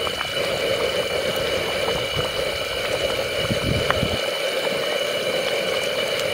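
Chicken curry bubbling at a steady boil in a clay pot, with a few soft knocks of a wooden spoon stirring it near the middle.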